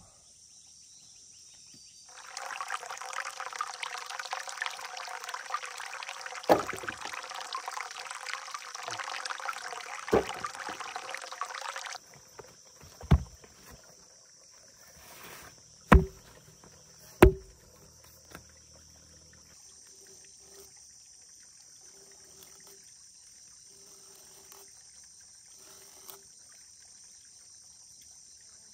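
Several heavy thuds as a felled log is rolled and set down on the forest floor, over a steady high drone of insects. For about ten seconds early on, a rushing, hissing noise cuts in and then stops abruptly.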